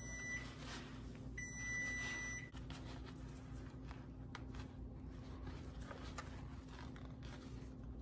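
Two long electronic beeps from a kitchen appliance, each about a second long: the first ends just after the start, the second sounds about a second and a half in. After them come soft rustling and a few faint clicks as a cooked corn husk is handled, over a steady low hum.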